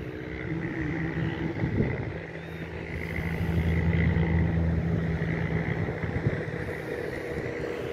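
Distant Cessna 172's single piston engine and propeller running steadily with a low drone, getting louder about three seconds in as the plane works along the runway on a touch-and-go.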